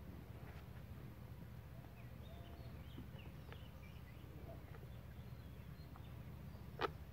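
Faint bird chirps, short and scattered, over a steady low rumble. A single sharp click comes near the end.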